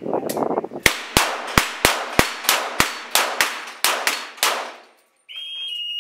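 Six pistol shots fired rapidly, in about two seconds, at steel falling plates, with the ringing metallic clang of plates being hit mixed in and trailing on after the last shot. A steady electronic beep sounds near the end.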